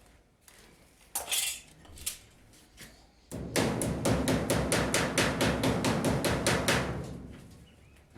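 A rapid, even run of sharp knocks or taps, about seven a second for some four seconds, fading out near the end.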